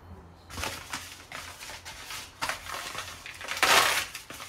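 Plastic bottle of cooking oil being handled and set down on the counter: a run of short crinkly rustles, the loudest about three and a half seconds in.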